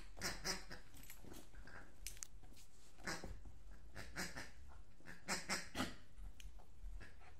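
A small Maltese-poodle cross dog gives short, excited barks in quick bursts, about seven in all: two at the start, single ones around the middle, and three in a row near the end.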